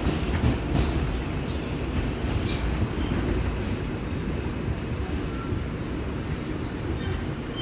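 Inside an R142 subway car: steady low rumble of the train, with a few faint clicks.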